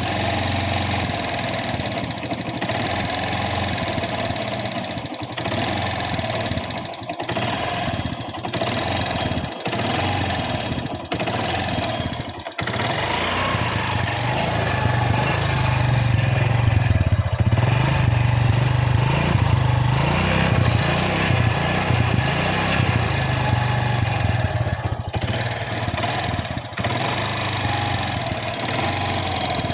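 TVS Sport single-cylinder four-stroke motorcycle engine running through a modified silencer, revved higher for about ten seconds in the middle. An engine valve clatter is louder than the exhaust note, which the owner takes as a sign that the valves need adjusting at a service.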